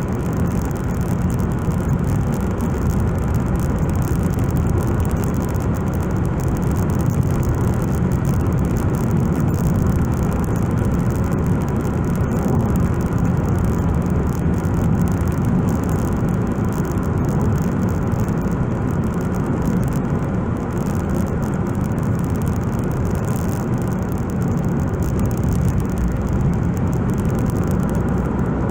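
Road noise inside a moving car's cabin: tyres on asphalt and the engine making a steady low rumble.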